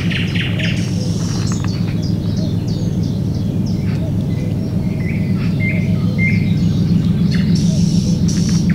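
Songbirds chirping and trilling in short repeated phrases, over a steady low hum that runs underneath throughout.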